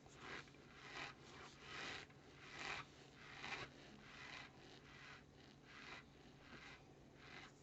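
Close-up chewing of microwave-baked cornstarch (Argo starch and Johnson and Johnson powder): faint, squeaky crunches roughly once a second.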